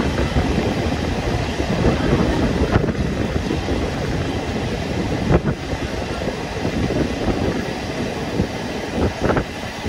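Steady running noise of a moving locomotive-hauled passenger coach heard from inside the car, with a few sharp knocks of the wheels over rail joints, the strongest a little past halfway and two close together near the end.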